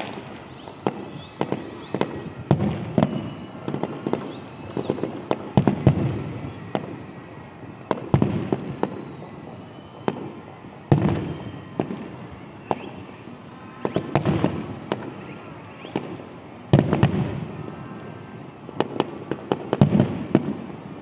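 Aerial fireworks display: shells bursting in an irregular run of bangs and crackles, several every couple of seconds.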